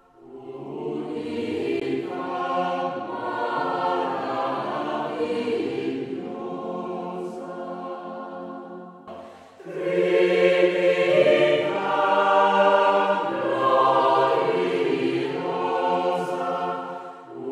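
Choir singing slow, held notes in two phrases, with a short break about halfway through; the second phrase is louder.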